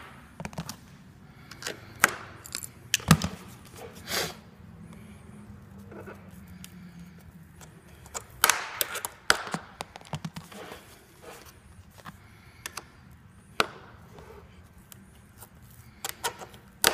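Flathead screwdriver prying and scraping at the metal staples in the end cap of a cardboard shipping tube: irregular clicks and scrapes with a few sharper knocks.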